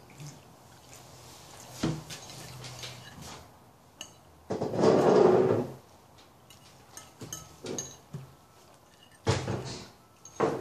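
Metal fork clinking and scraping on a ceramic plate while cutting fried eggs, with a few sharp knocks and a louder scraping noise lasting about a second around the middle.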